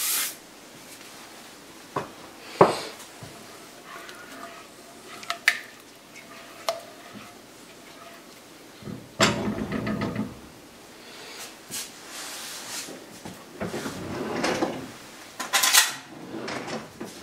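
A utensil stirring thick mole sauce in an enamelled cast-iron pot, with scattered knocks and clinks against the pot and short stretches of scraping, the loudest about nine seconds in.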